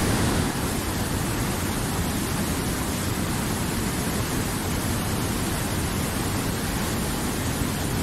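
Shallow rocky stream running over stones: a steady rush of water that comes in suddenly at the start.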